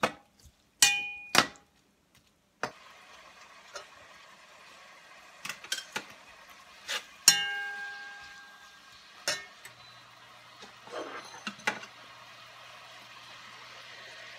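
Slotted metal spatula stirring sliced onions in a large metal pot: repeated sharp clangs and scrapes against the pot, some ringing briefly, the loudest about seven seconds in. Under them a steady sizzle of the onions frying in mustard oil, and a faint low hum starts midway.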